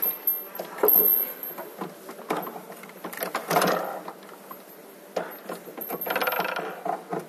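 Metal clicks, knocks and rattles from LED display cabinet frames and their fast-lock latch hardware as two cabinets are pushed together and lined up. The knocks are irregular, with short rattling passages about three and a half seconds in and again near the end.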